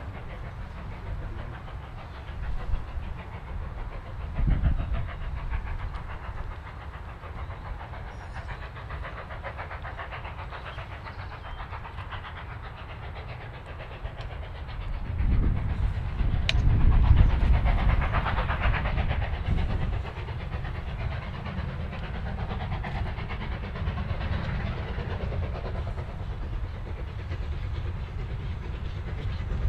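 Steam locomotive working a train: steady chuffing exhaust with hiss and rail rumble. It swells louder for a few seconds about halfway through, then eases back.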